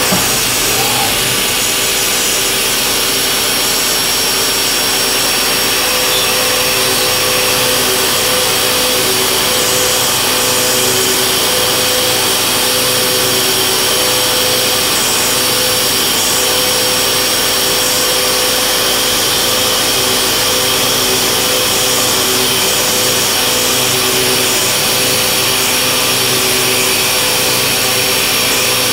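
1995 Haas VF-3 CNC vertical mill cutting aluminium with an end mill: a steady machining whine of several held tones over a constant hiss, running unbroken.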